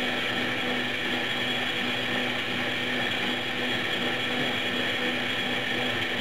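Electric go-kart motor and drivetrain running steadily at constant speed under full throttle, with an even, unchanging pitch: the slip-ratio traction control is holding the speed down instead of letting it keep accelerating.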